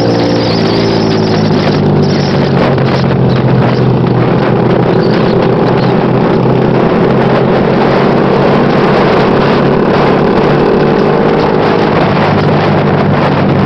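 Vehicle engine running steadily under way, with wind noise on the microphone.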